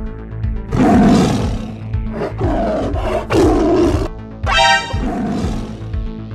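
Background music with a steady beat, overlaid with three loud cartoon animal roar sound effects.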